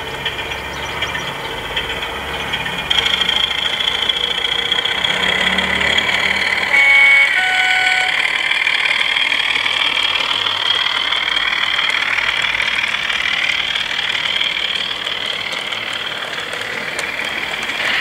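Sound-fitted DCC model diesel locomotive running, its engine sound played through an onboard speaker, over the noise of the train's wheels on the track. About seven seconds in it sounds a two-tone horn, a higher note then a lower one.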